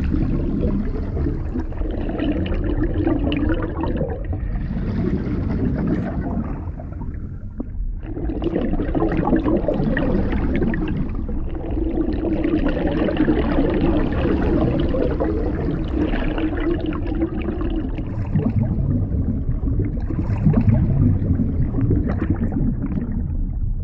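Water gurgling and rushing, muffled, over a steady low rumble; it eases briefly about seven seconds in.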